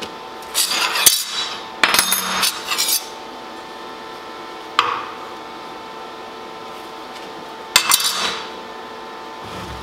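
Steel parts being handled on a steel welding table: a few metallic clanks and clinks with a short ring in the first three seconds, a single click near five seconds, and another clank about eight seconds in.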